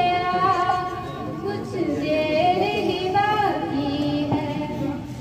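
A young woman singing a slow melody into a handheld microphone, holding long notes and sliding between them.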